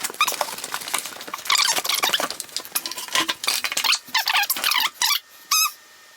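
Foam packaging squeaking and rubbing in a rapid, irregular series of high squeals as a boxed 3D printer is unpacked, going briefly quiet near the end.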